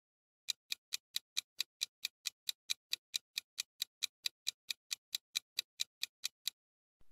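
Clock-like countdown-timer ticking sound effect, a sharp even tick about four and a half times a second, marking the time running out to answer. It starts about half a second in and stops shortly before the end.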